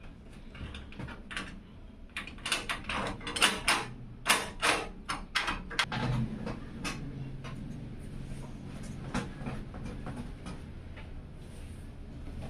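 Handling noises from a PC case being worked on: a quick run of clicks, taps and rustles, thickest in the first half, then sparser clicks over a low steady hum.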